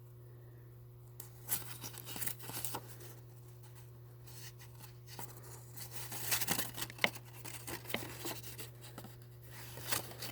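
Paper and cardboard rustling and crinkling as the lighter's original box and paperwork are handled, with scattered small clicks and taps, busier in the second half, over a steady low hum.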